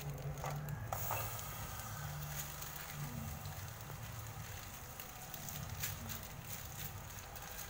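A lump of yellow paste sizzling and crackling as it hits a hot metal pan, with a few faint ticks early on as it is scraped off the spoon. A low steady hum runs underneath.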